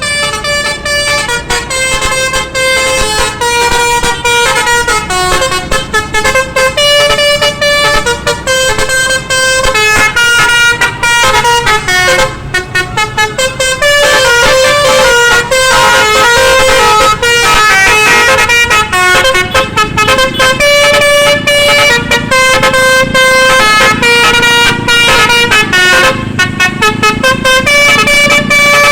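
Bus basuri horn, a multi-note musical horn, playing a tune of quick repeated notes and longer held ones, loud and without pause.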